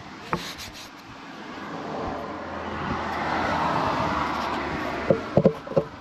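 A vehicle passing by, its noise swelling and then fading, over a steady low hum, with a few short knocks near the end.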